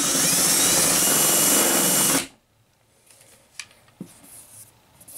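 Cordless drill spinning a countersink bit into a pilot hole in the cabinet's panel, widening the top of the hole so the screw head sits recessed. It runs steadily for about two seconds, then stops sharply, and a few faint light taps follow.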